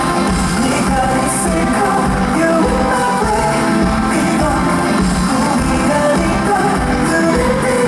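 Live pop song played over a concert hall's sound system: a male singer's voice over a band backing with a steady beat.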